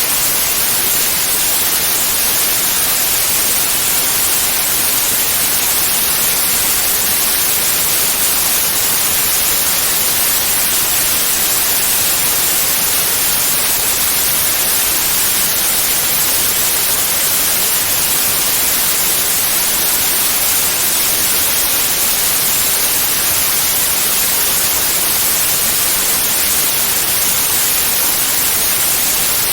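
Steady white noise: an even, bright hiss with no pitch, no rhythm and no change in level, played as a masking sound for tinnitus.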